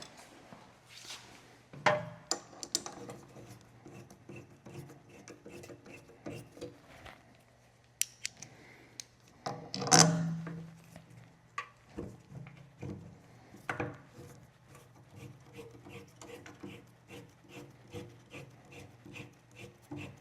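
Hand ratchet clicking in short runs while 5 mm internal-hex bolts are run in, with a couple of louder knocks of tools or parts.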